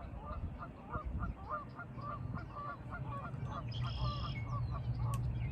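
Geese honking in a rapid series, about three calls a second, dying away near the end, with a brief high songbird call about four seconds in.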